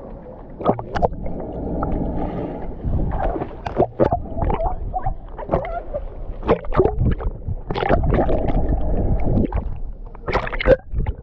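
Pool water sloshing and gurgling against a camera held at the water's surface, with repeated splashes from a swimmer's strokes. Twice the sound turns low and muffled for a second or two.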